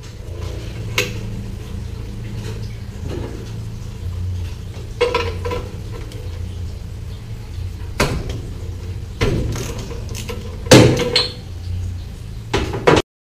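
Metal clinks and clanks of a socket wrench and extension being handled at a Miller Bobcat welder's Onan engine. There are about half a dozen separate knocks, the loudest near the end, over a low steady hum. The sound cuts off suddenly.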